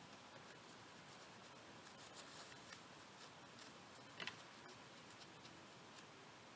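Near silence: faint room tone with a few faint small clicks, one about two seconds in and a quick pair about four seconds in.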